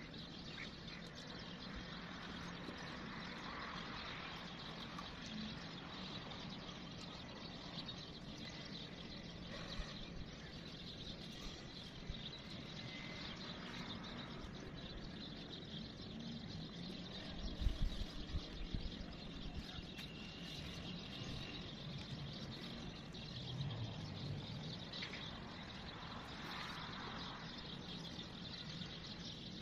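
Steady outdoor background noise with faint bird chirps now and then, and one brief low thump about two-thirds of the way through.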